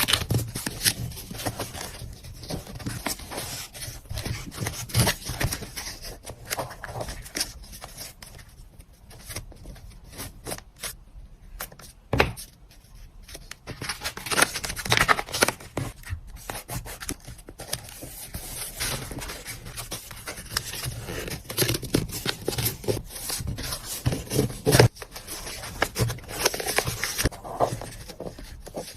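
Hand-packing sounds: packaging materials rustled, rubbed and scraped by hand, with irregular small clicks and taps and a couple of sharper knocks, one about twelve seconds in and the loudest near the end.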